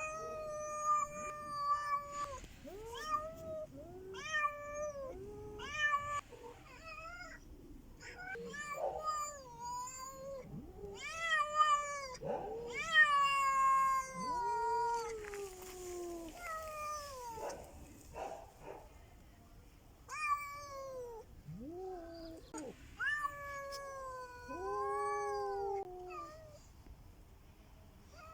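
Domestic cats caterwauling at each other in a fight standoff: a string of drawn-out yowls and moans that rise and fall in pitch, at times two voices overlapping, loudest in the middle.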